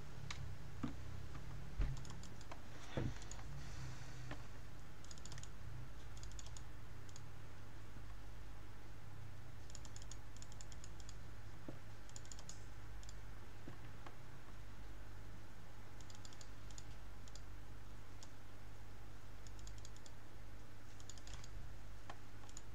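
Computer keyboard typing in short bursts of quick keystrokes every few seconds, over a low steady hum.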